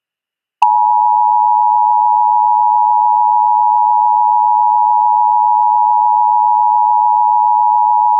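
Emergency Alert System two-tone attention signal: a loud, steady dual tone that comes on with a click about half a second in and holds unchanged, marking the start of an emergency alert broadcast.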